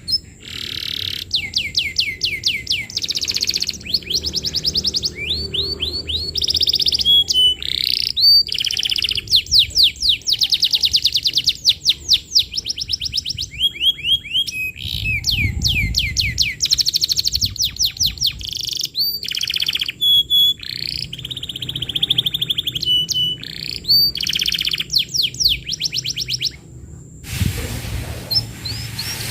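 Domestic canary singing a long, continuous song of rapid trills, each phrase a fast run of repeated high notes, switching from one trill to the next every second or two. Near the end the song stops and a steady hiss takes over.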